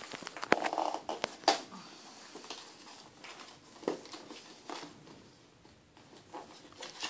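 Cardboard retail box being handled and opened by hand: sharp clicks and rustles of the box flaps, loudest in the first two seconds, another tap near four seconds in, then quieter handling.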